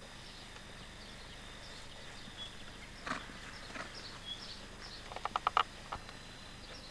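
Faint steady outdoor background with scattered short high chirps. About five seconds in comes a quick run of about six rapid pulses.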